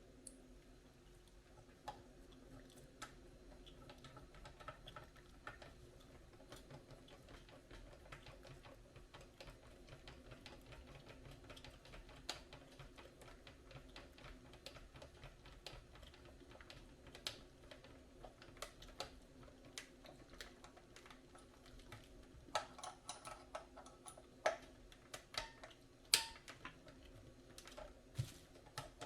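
Light scattered clicks and taps of small parts being handled as an aluminium steering wheel is fitted onto an RC transmitter, sharper and more frequent in the last several seconds, over a faint steady low hum.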